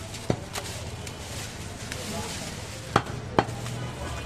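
Heavy butcher's cleaver chopping goat meat and bone on a wooden log chopping block: one sharp chop just after the start and two more close together about three seconds in, with lighter knocks between.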